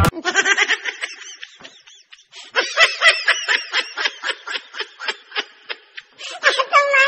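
Snickering laughter: a run of quick, evenly spaced giggles, about four a second, breaking off briefly about two seconds in and then going on.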